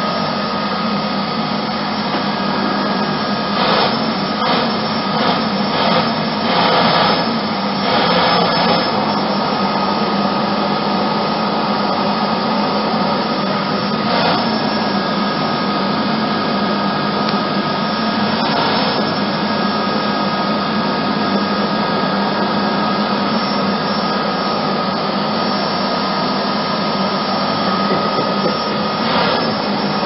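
Vacuum cleaner running steadily with a constant motor hum and hiss, swelling into brief louder rushes of air several times, mostly in the first ten seconds.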